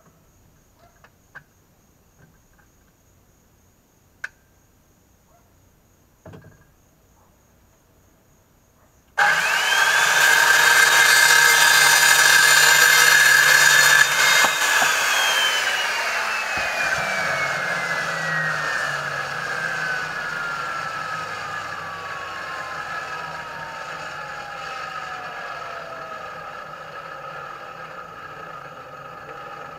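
Power saw starting up and running at full speed for about five seconds, cutting PVC pipe, then released so the blade winds down in a long, slowly falling whine. Before the saw starts there are only a few faint clicks and taps.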